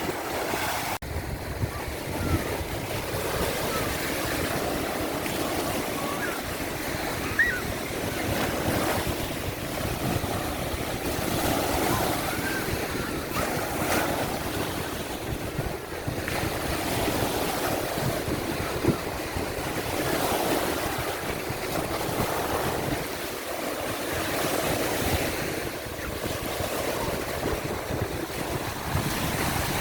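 Ocean surf washing in continuously, swelling and easing every few seconds as waves break, with wind buffeting the microphone.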